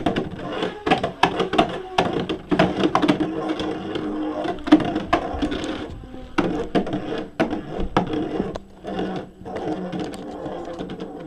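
A Beyblade metal spinning top lands in a plastic Beyblade stadium with a loud clack right at the start, then spins around the bowl with a steady whirring hum and many sharp clicks as it strikes the stadium.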